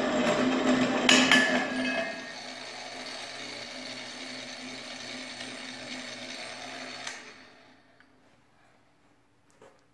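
Small electric pipe-cutting machine running, its motor turning a metal pipe on rollers against the cutting wheel: loud grinding with a hum, briefly louder a little past one second, until the cutting noise drops away about two seconds in. The machine runs on more quietly, then clicks off about seven seconds in and winds down.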